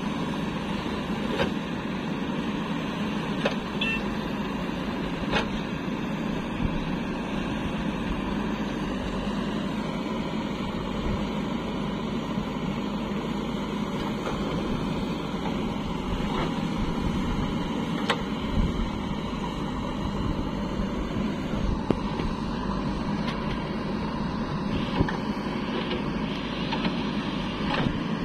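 JCB backhoe loader's diesel engine running steadily as it digs and loads, with a tractor's diesel engine running alongside. A few sharp knocks break through now and then.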